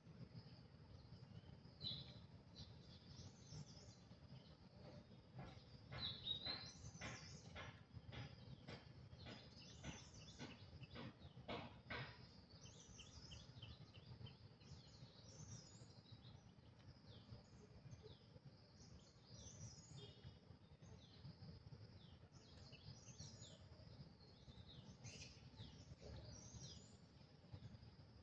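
Faint birdsong: many small birds chirping and warbling, over a low steady outdoor rumble. For several seconds near the start there is also a run of evenly spaced clicks, about two a second.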